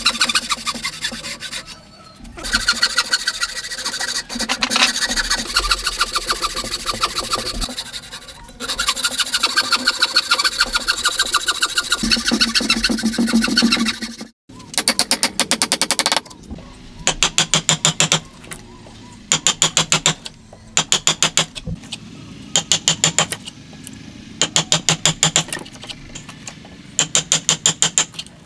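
A hand tool rasping and scraping on wood in quick, regular strokes. After a break about halfway through, it comes in repeated bursts of a second or so with short pauses between them.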